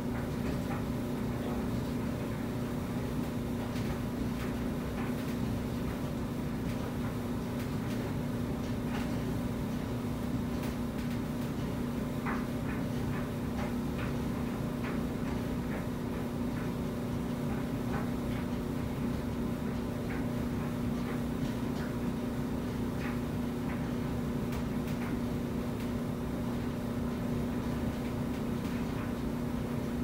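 Front-loading clothes dryer running: a steady hum and low rumble from the turning drum as the load tumbles, with faint scattered clicks.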